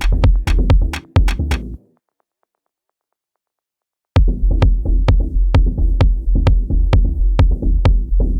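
Electronic drum-machine beat played on Native Instruments Maschine 2, with a deep bass under regular sharp hi-hat and drum hits. It stops abruptly about two seconds in, leaves two seconds of silence, then comes back in and cuts off again at the end.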